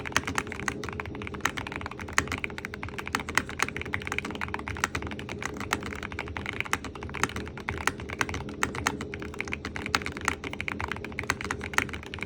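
Fast, continuous typing on a Keychron K2 HE keyboard with magnetic Hall effect switches and standard shine-thru keycaps: a dense stream of keystroke clacks.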